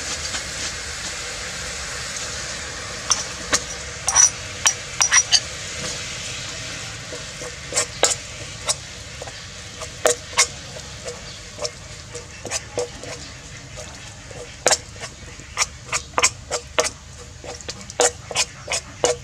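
Spice paste sizzling in hot oil in an aluminium pot while a metal spoon stirs it, clinking and scraping against the pot. The sizzle is steadiest at first, and the spoon's sharp clicks start about three seconds in and go on irregularly.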